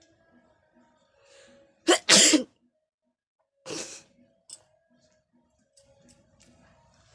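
A woman sneezes hard, brought on by chili pepper. There is a short in-breath, then a loud double-burst sneeze about two seconds in, and a second, softer sneeze under two seconds later.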